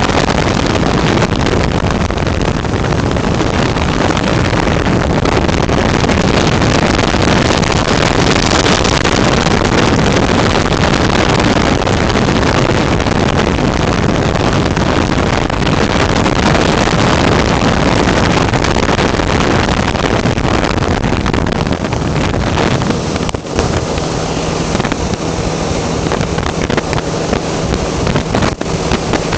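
Flex-wing microlight trike in flight: the engine's steady drone mixed with heavy wind rush buffeting the microphone, with a brief break about three-quarters of the way through.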